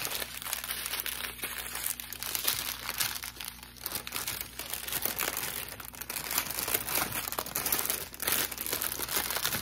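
Small clear plastic bags of special-shaped diamond painting drills crinkling as they are handled, an irregular crackle of rustling plastic.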